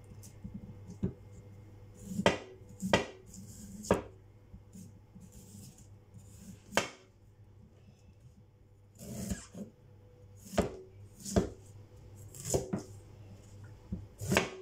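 A cleaver cutting through ginger and knocking on a wooden cutting board in slow, irregular chops, about a dozen sharp knocks with pauses between them.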